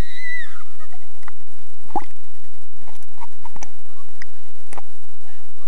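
Muffled underwater sound of a swimming pool, heard through a submerged camera's microphone: scattered sharp clicks and pops of water and bubbles. A short falling squeal sounds right at the start.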